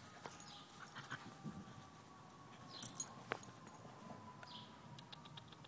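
Two small poodle-mix dogs playing, heard faintly as scuffling and light clicks. There is one sharper click about three seconds in and a quick run of ticks near the end.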